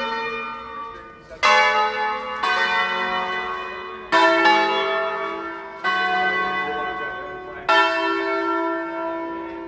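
Church tower bells ringing a festive peal: bells of different pitches struck one after another, about six strokes at uneven spacing, each ringing on and fading into the next.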